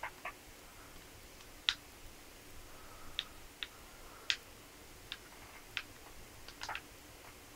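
Faint, sharp little clicks at uneven intervals, about ten of them, a couple coming in quick pairs.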